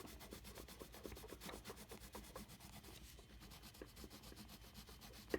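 Coloured pencil scratching faintly across sketchbook paper in quick, repeated strokes as colour is layered on.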